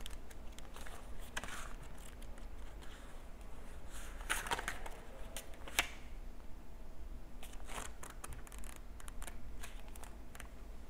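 Faint, scattered rustles and light taps of cards and paper being handled, with a couple of louder swishes about four and six seconds in, over a low steady room hum.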